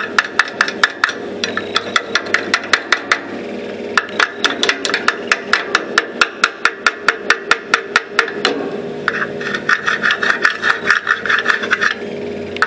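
Hand tool working on the steel mower axle: quick sharp taps at about five a second in two runs, then a steady rasping scrape from about 9 s.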